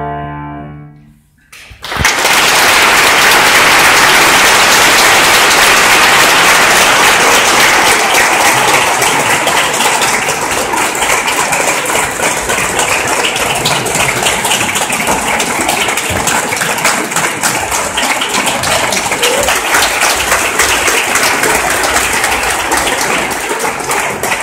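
The last sung note with piano dies away within the first second or so. Then an audience breaks into loud, steady applause that runs on through the bows.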